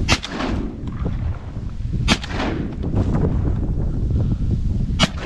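Three shotgun shots, about two and three seconds apart, each trailing off in a short echo, over wind rumbling on the microphone.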